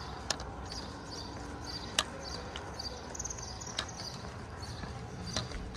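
Footsteps of a person walking on pavement, with four sharp taps about every one and a half to two seconds, the second the loudest.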